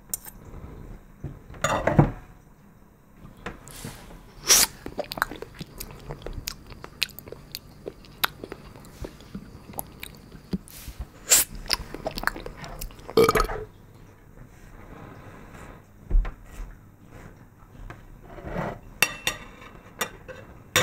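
Chewing and biting sounds with crunches, coming irregularly in short bursts and sharp clicks, the loudest a few seconds apart.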